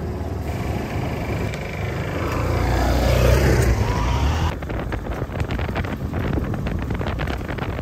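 A motorcycle tricycle's engine approaches and passes close by, growing louder to a peak about three seconds in. From about four and a half seconds the sound changes abruptly to the engine and fast rattly buffeting heard from inside the moving sidecar.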